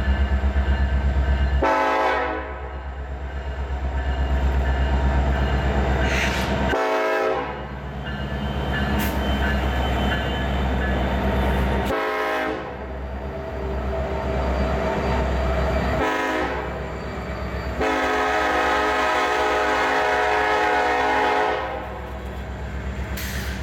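BNSF EMD SD70-series diesel locomotives at the head of a loaded coal train, pulling away under power with a deep pulsing engine throb. The locomotive horn sounds the grade-crossing signal: long, long, short, long.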